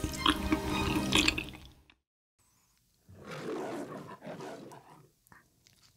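Background music and eating sounds fade out within the first two seconds. After a short silence comes a growling roar in two swells, like the MGM lion's roar, set to a white dog's wide-open yawn in a parody of the lion logo.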